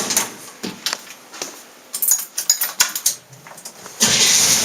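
Light metal clinks and clicks, scattered and irregular. About four seconds in, a steady running sound with a low hum starts abruptly and holds.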